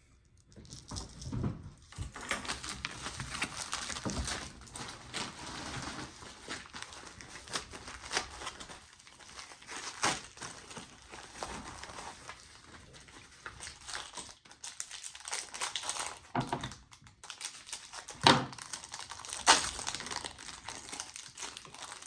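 Plastic packaging crinkling and tearing as a fishing lure is unwrapped by hand, with scattered clicks and two sharper knocks near the end.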